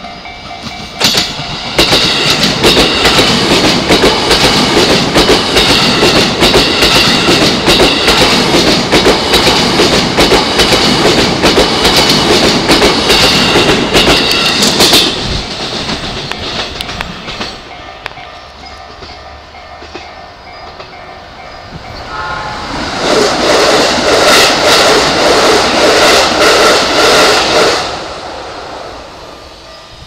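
A JR East E233-series electric commuter train passes close by with rapid wheel clatter over rail joints and points. It is loud for about 14 seconds, then fades. A second train passage rises about 22 seconds in and drops away a few seconds before the end.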